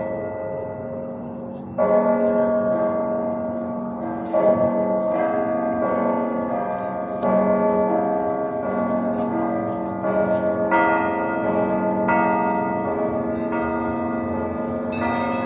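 Russian Orthodox church bells ringing a festive Easter peal: big bells are struck every second or two and their tones ring on and overlap, while small bells chime quickly above them.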